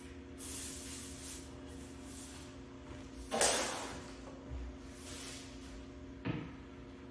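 Broom sweeping and trash being gathered on a hard floor: repeated swishing rustles, a louder rustling crash about three seconds in and a low knock about six seconds in, over a faint steady hum.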